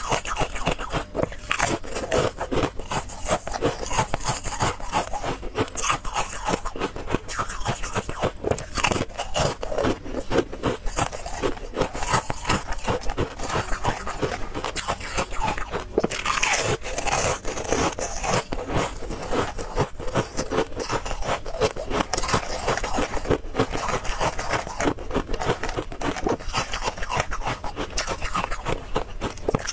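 A person biting and chewing thin sheets of ice close to the microphone, a dense run of crisp crunching and crackling with no pause.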